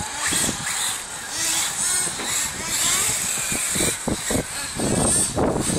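Radio-controlled off-road buggy running around a dirt track, its high-revving motor rising and falling as it drives the corners.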